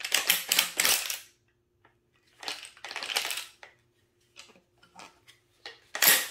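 12-gauge pump-action shotgun being worked and dry-fired on a laser training cartridge: two spells of clattering from the action, a few small clicks, then one sharp snap of the firing pin falling about six seconds in.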